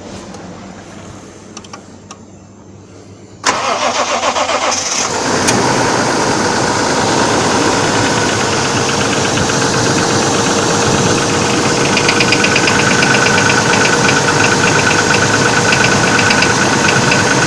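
Toyota Beams engine cold-started: the starter cranks about three and a half seconds in, the engine catches about a second and a half later and settles to a steady idle with a fast rhythmic knock, the cold-start knock the owner is complaining of.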